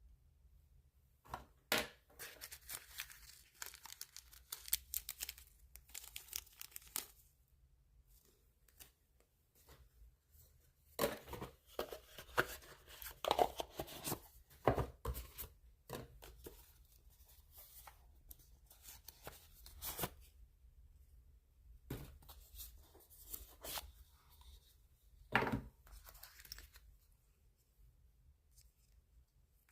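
Product packaging being torn open and handled by hand: tearing and crinkling in several bursts, with quiet pauses between them.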